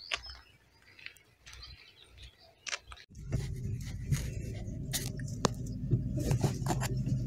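Faint, quiet outdoor sound with a few light ticks, then about three seconds in a sudden switch to a car's engine and road noise heard from inside the cabin: a steady low drone with frequent knocks and rattles as it drives along a dirt road.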